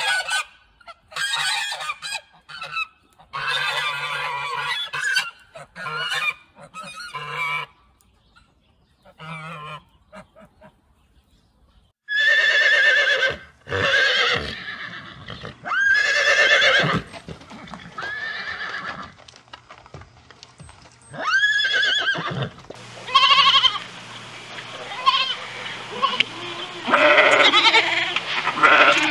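A goose honking in a run of harsh calls, then after a short pause a horse neighing several times, and in the last few seconds a goat bleating.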